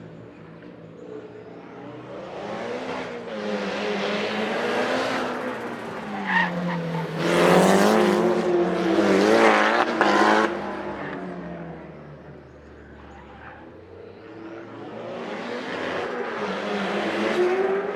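A Datsun racing sedan's four-cylinder engine being driven hard, its pitch rising and falling as it revs. It grows to its loudest about halfway through, fades, then builds again near the end.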